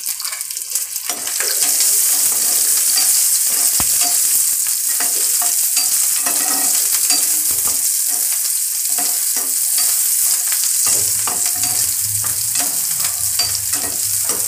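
Shallots sizzling in hot oil in a non-stick frying pan, the sizzle growing louder about a second in, while a steel spoon stirs them with repeated scrapes and clicks against the pan.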